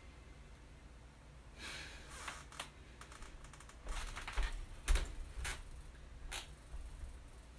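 A person holding a plank on an exercise mat, breathing hard in a few short, noisy breaths, with scattered light clicks and taps and a soft thump about five seconds in.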